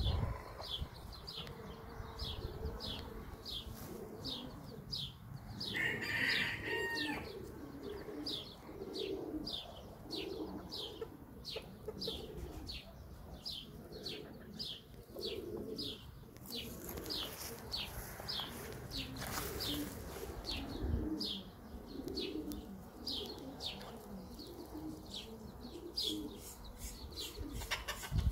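Birds in the background: a high chirp repeated about twice a second, over low cooing like doves. A short, louder bird call comes about six seconds in.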